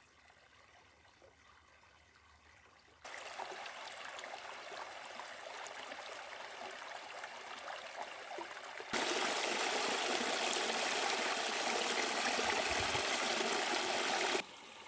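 A small seasonal creek running and trickling after recent rain, in two edited takes: a softer one from about three seconds in, then a louder, closer one from about nine seconds in, cut off shortly before the end. The first three seconds are near silence.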